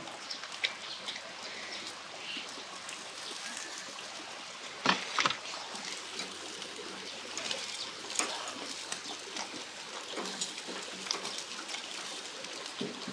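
Pork sizzling on a charcoal grill's wire grate, with scattered light clicks of metal tongs as the slices are turned, and a bird, likely a dove, cooing in the background.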